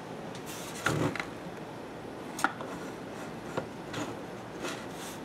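Hands handling a plastic security camera on a table: a thump about a second in, a sharp click a little later and a few lighter knocks and ticks, over a steady low hiss.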